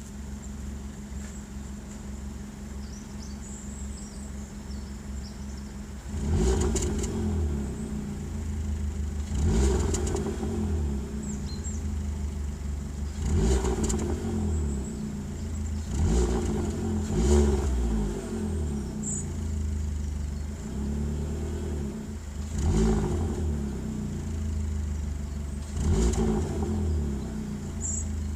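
Opel Corsa E 1.2 petrol engine on its stock exhaust, idling steadily at first, then blipped into short revs about seven times, a few seconds apart, dropping back to idle after each.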